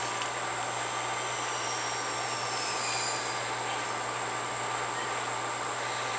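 A steady hiss with a constant low electrical hum underneath and no distinct events.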